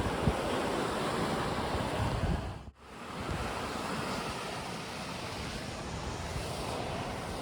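Mediterranean surf breaking heavily on the shore, with wind buffeting the microphone in the first couple of seconds. The sound drops out briefly near three seconds in, then the surf runs on more evenly.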